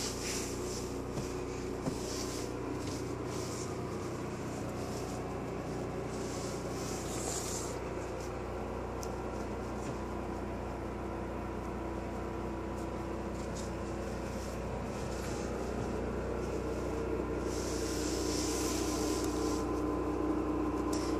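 Steady machine hum made of several constant tones, such as a running appliance or fan gives. Light handling rustle and footsteps come and go over it.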